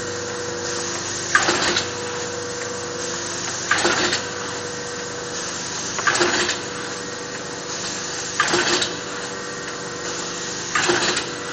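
Theisen & Bonitz 315 VP paper-handling machine running steadily with a constant hum, with a brief, louder rushing clatter about every two and a half seconds, five times over.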